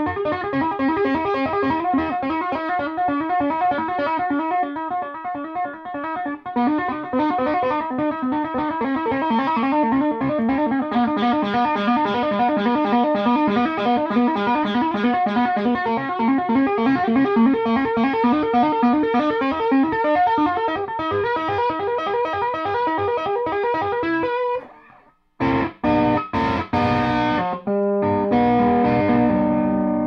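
Electric guitar with a P90 pickup, played through a Peavey Bandit amplifier, running through fast single-note lines. About 25 seconds in the playing cuts off, a few short chord stabs follow, and then notes are left ringing.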